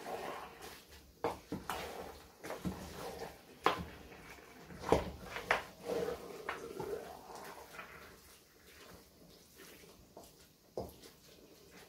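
Wooden spoon stirring thick leafy vegetable soup in a metal pot: wet squelching of the greens with irregular knocks of the spoon against the pot, most of them in the middle of the stretch and fewer near the end.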